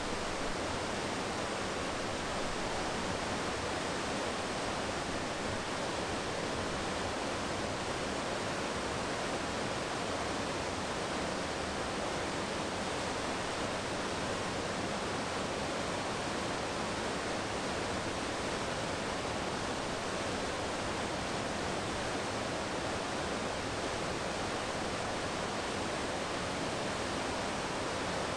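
Whitewater rapids of a mountain river, rushing steadily.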